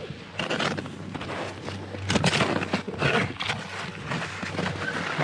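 Skis carving and scraping over hard, uneven piste snow, in irregular bursts of scraping hiss.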